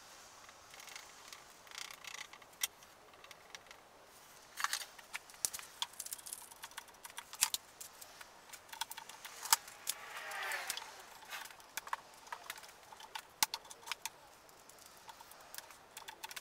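One-handed quick-release bar clamps being set and squeezed tight on glued boards: a run of sharp, irregular clicks and clatters as the triggers ratchet and the clamps knock against the wood and each other, with a brief scrape about ten seconds in.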